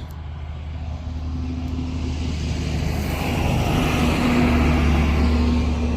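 A motor vehicle passing on the road, its engine hum and tyre noise growing steadily louder to a peak about four to five seconds in.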